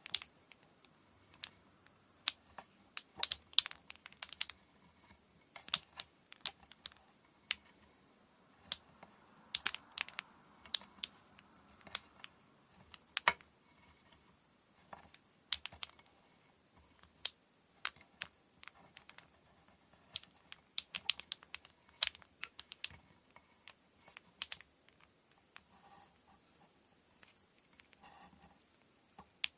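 Scattered, irregular light clicks and taps of small hard objects being handled during kumihimo braid preparation, with a few sharper knocks and faint rustling between them.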